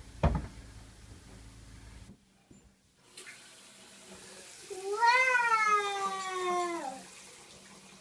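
Tap water running from a faucet into a hammered metal vessel sink. About five seconds in, a single long high-pitched call rises and then slowly falls over about two seconds; it is the loudest sound.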